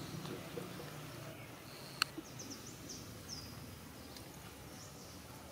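Quiet outdoor background with a run of short, high-pitched chirps, each falling in pitch, and a single sharp click about two seconds in.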